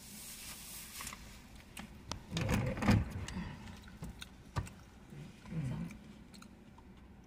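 Soft eating sounds: a plastic fork clicking and scraping in a molded-fibre takeout container of fries and shrimp, with scattered short clicks and a couple of brief mumbled sounds through a full mouth.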